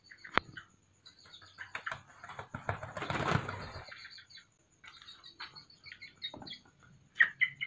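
Pigeon wings flapping in a short flurry partway through as a mating pair separates, over steady high chirping in the background.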